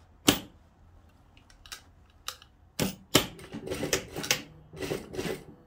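Industrial single-needle sewing machine: a sharp click about a quarter second in, then from about three seconds in a couple of clicks and short runs of rapid stitching clatter, backstitching over a seam to lock it.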